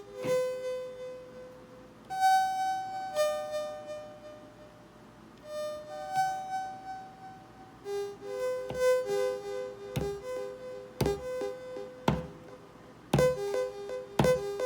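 Eurorack modular synthesizer played from a barre controller: single bright, buzzy notes held and sliding between pitches, then from about eight seconds in a quicker run of repeated notes with sharp clicks about once a second.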